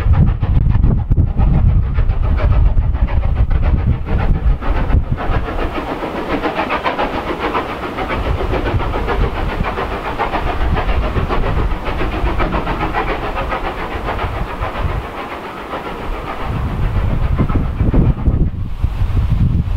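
Strong wind buffeting the microphone with a heavy low rumble, over the rushing sound of a steam train working in the distance.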